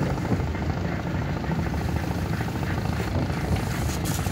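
A boat's engine running steadily, a fast even chugging.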